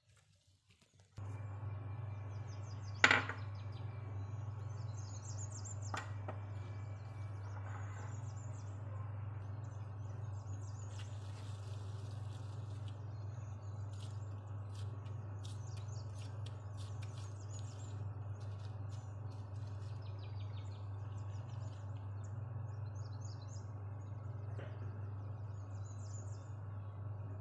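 A steady low hum that starts abruptly about a second in, with birds chirping faintly throughout. A sharp knock sounds about three seconds in, and a lighter one near six seconds.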